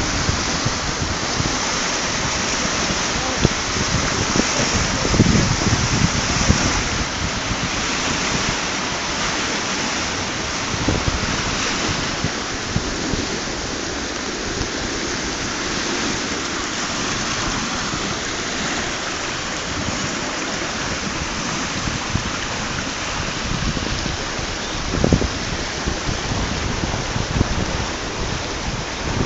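Swollen river in flood rushing past in a steady, even wash of water noise, with a few low gusts of wind buffeting the microphone.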